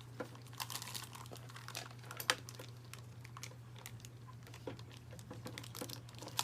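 Small plastic toy pieces, toy ice cubes, cup and toy-fridge parts, clicking and tapping as they are handled, with a sharper click about two seconds in.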